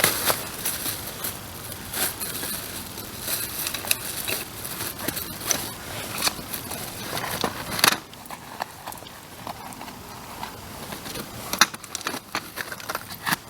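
Wood bonfire crackling, with irregular sharp snaps throughout; the fire gets quieter about eight seconds in.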